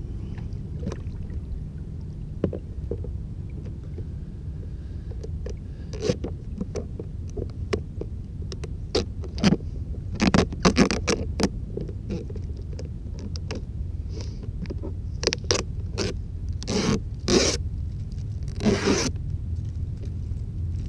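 The plastic hull of a Pro Boat Miss Geico 29 RC boat being handled at a wooden dock's edge: scattered knocks and clusters of scraping, loudest about halfway through and again near the end, over a steady low rumble. The boat's motor is not running.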